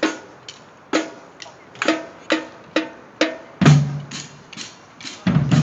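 A marching drumline of snare, tenor and bass drums playing a steady beat of sharp strikes, about two a second. Deep bass-drum hits join about two-thirds of the way through.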